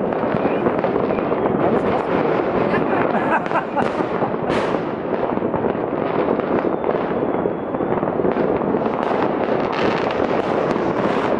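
Many fireworks and firecrackers going off at once across a whole city: a dense, unbroken crackle of bangs, none standing out much over the rest. A faint thin whistle rises above it for about a second near the middle.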